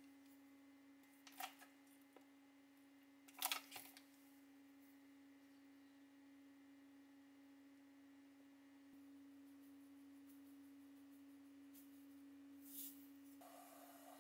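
Near silence over a faint steady electrical hum, broken by a few soft clicks of a wooden spoon and silicone spatula knocking against a cast-iron pan, about one and a half and three and a half seconds in. A faint rushing noise sets in near the end.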